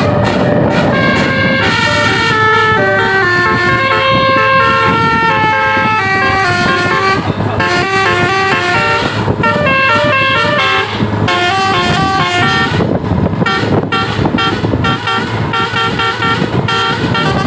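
Bus 'telolet basuri' musical horn playing a tune: loud pitched horn notes stepping from one note to the next, held notes first, then shorter, quicker notes in the second half.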